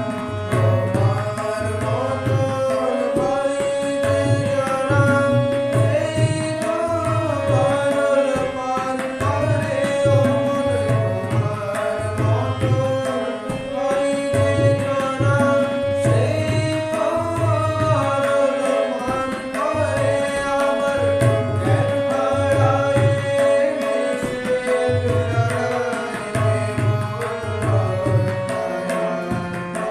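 Tabla and harmonium playing a devotional Kali kirtan, with a man's voice singing the melody. Deep bass strokes of the bayan fall in a steady repeating cycle under the harmonium's held notes.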